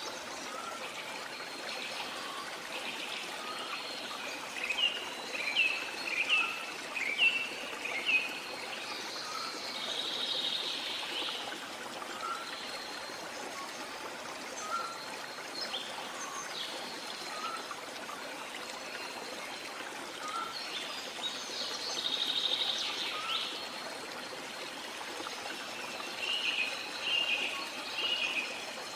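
Steady trickle of running water with birds chirping in several short spells.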